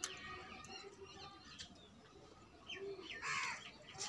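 Birds chirping in short, falling chirps, with one louder, harsh call a little over three seconds in.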